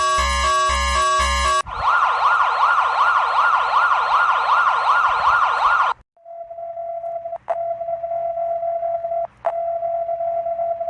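Emergency alert tones. A short burst of electronic music with a steady beat gives way to a siren tone warbling quickly up and down, about three to four wobbles a second. After a brief pause comes a steady single-pitched alert tone that breaks off twice for an instant.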